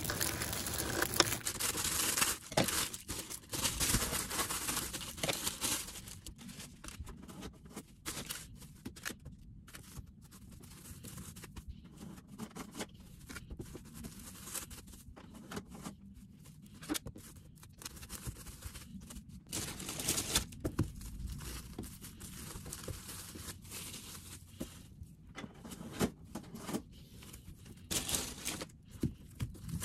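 Plastic crinkling and rustling: plastic-bagged onions handled at first, then cling film pulled off, torn and crumpled around bread rolls, in irregular crackles and tearing strokes.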